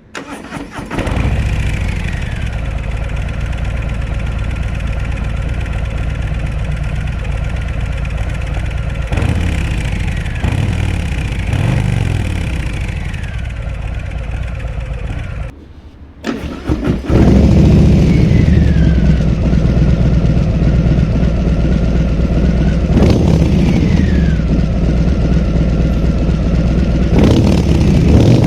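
Harley-Davidson Breakout's Milwaukee-Eight 114 V-twin starting up and idling, with a few short throttle blips. About halfway through the sound drops out briefly, then the bike comes back running and blipping noticeably louder.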